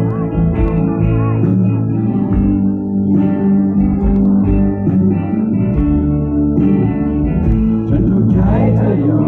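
Live rock band playing a song's instrumental intro: electric guitars over bass guitar and drums, loud and steady.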